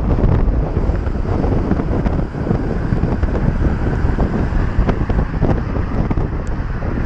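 Wind rushing over the microphone of a camera on a moving bicycle: a steady, heavy low rush of noise.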